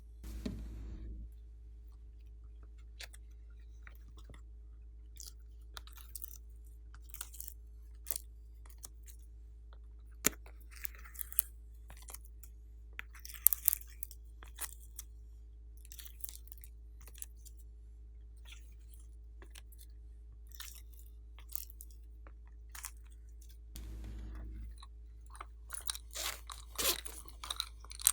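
Slime being handled and squeezed, with scattered sharp crackles, pops and clicks that grow busier and louder in the last few seconds, over a steady low hum.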